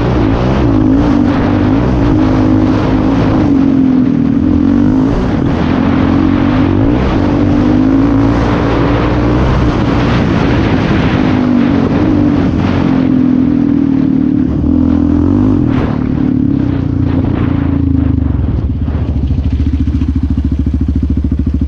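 Yamaha Raptor 700R quad's single-cylinder four-stroke engine running on the trail, its pitch rising and falling with the throttle. About eighteen seconds in it drops to a lower, steady putter as the quad slows.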